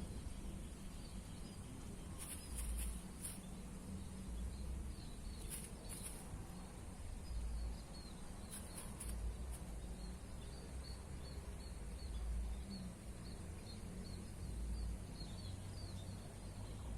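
Outdoor ambience: wind rumbling in gusts on the microphone, a steady high insect whine, and a bird chirping in a long run of short high notes, about two a second. A few brief rustles come in around two, five and eight seconds in.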